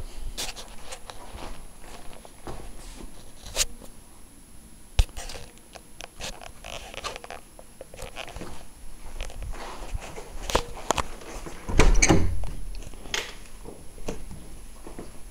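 Handling noise from a handheld camera being moved about: irregular clicks, knocks and rustling, with a louder rumbling knock about twelve seconds in.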